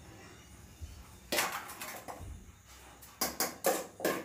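Steel dog-feeding bowls and a steel pot clanking and scraping: one short scrape about a second in, then a quick run of sharp metallic clinks near the end.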